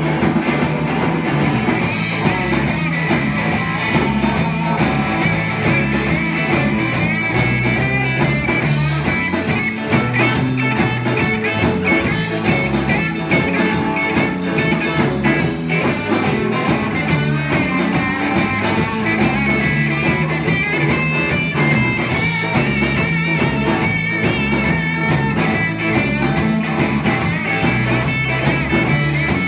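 Live rock band playing electric guitars over a drum kit, with a repeating low riff and a guitar line on top, steady and loud throughout.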